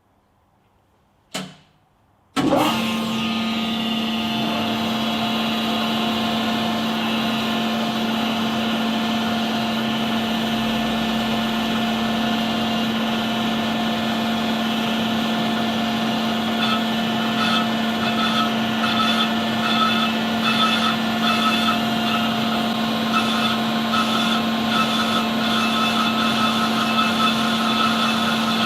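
Metal lathe switching on about two seconds in and running steadily with a constant motor and gear whine. From about halfway on, an on-and-off ringing pulses over the hum as the carbide tool skims the cast steel flywheel face. The tool is cutting only on the high spots of an uneven face.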